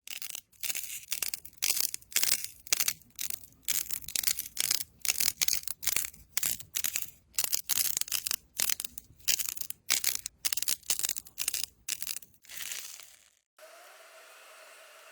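Slime being squeezed and pressed by hand, crackling and crunching in quick repeated squeezes, about two a second. Near the end it cuts to a faint steady background sound.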